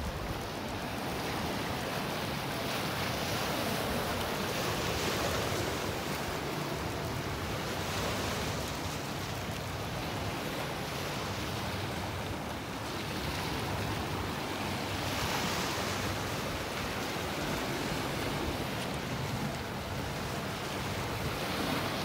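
Lake Superior waves washing against a rocky shore: a steady rushing that swells and eases every few seconds. Some wind buffets the microphone.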